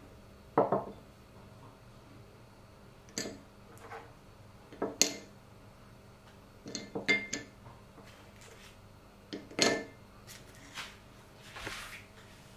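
Ceramic dish and tableware being handled and set down on a wooden table: a series of light knocks and clinks, scattered and sometimes in quick clusters, with a brief scuffing sound near the end.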